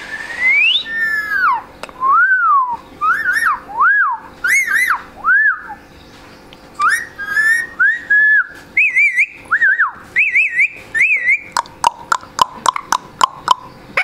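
Rose-ringed parakeet whistling a string of short swooping notes that rise and fall, some doubled or wavering. It ends with a quick run of sharp clicks about two seconds before the end.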